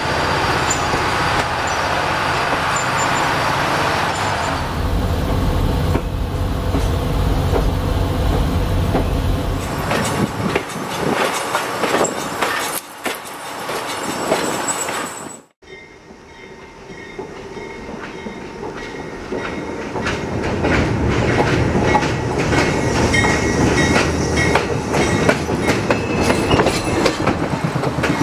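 Budd RDC rail diesel car rolling past at track level, its wheels clacking over the rail joints along with the running of its Detroit Diesel 110 engine. The sound breaks off abruptly about halfway through, then builds back up as the car passes again, loud for the last several seconds.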